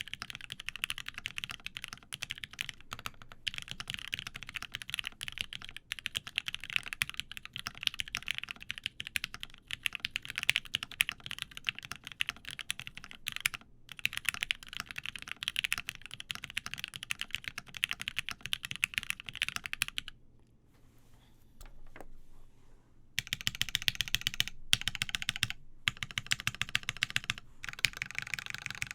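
Typing on a Hephaestus Works Nasu gasket-mounted mechanical keyboard with lubed Gateron Ink switches, a UHMWPE plate and GMK keycaps: rapid, continuous keystrokes. The typing stops for about three seconds about two-thirds of the way in, then resumes.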